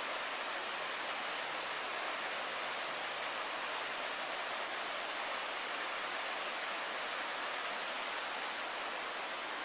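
A river flowing, a steady, even rush of water with no breaks.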